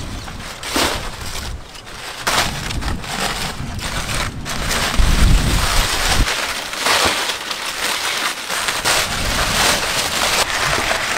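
Crumpled aluminium foil crackling and tearing as gloved hands pull it open, a dense run of crinkles with louder rips.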